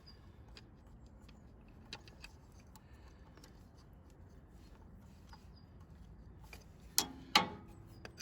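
Faint metallic clicks and clinks of a hose clamp and hand tools being handled while fitting a radiator hose clamp, with two sharp metal clanks close together about seven seconds in.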